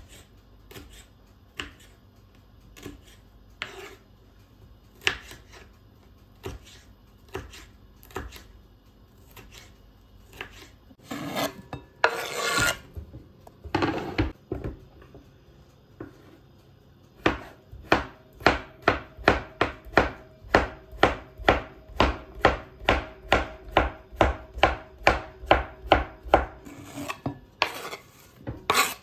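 Kitchen knife chopping on a cutting board: scattered single cuts at first, a rustling scrape near the middle, then a steady run of chopping at about three strokes a second.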